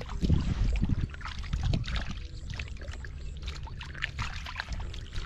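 Hands splashing and sloshing in shallow muddy water, with irregular small splashes as they grope along the bottom for a catfish.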